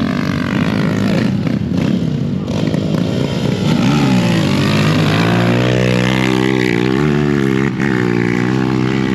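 A vehicle engine running loud and revving: its pitch climbs about four seconds in and then holds, with small dips.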